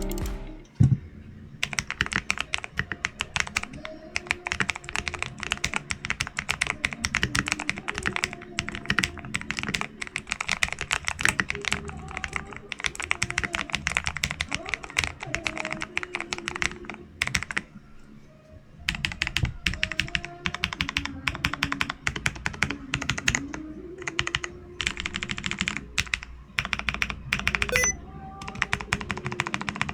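Fast typing on an Ajazz AK871 mechanical keyboard fitted with blue switches whose springs and blue click stems have been lubed with Vaseline, which turns the clicky sound toward a creamier one. The keystrokes run densely, with one short pause a little past the middle.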